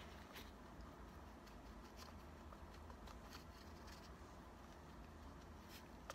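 Near silence with a few faint, scattered scratches and taps: a paintbrush dabbing and stroking paint onto a vinyl doll leg.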